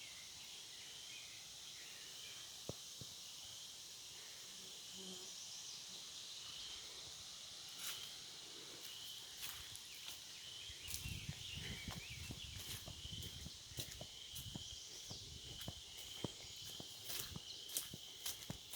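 Faint, steady high chirping of birds in the background. From about halfway through, footsteps walking along a trail.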